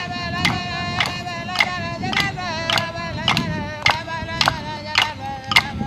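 Aboriginal ceremonial song for a cockatoo dance: voices hold long, wavering sung notes over a steady struck beat of just under two beats a second.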